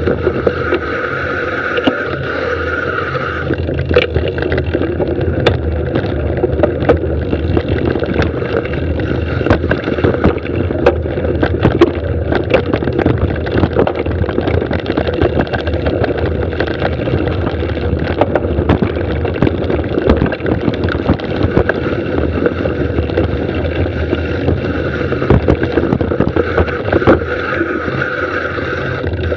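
Mountain bike riding fast down a dirt singletrack, heard from a bike- or rider-mounted camera: steady rumble of tyres on dirt and rushing air, with frequent rattles and knocks from the bike hitting bumps and roots.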